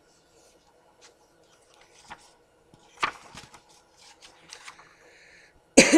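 Faint scattered clicks and rubbing handling noises, with a sharper rustle about three seconds in and a louder short burst of noise near the end.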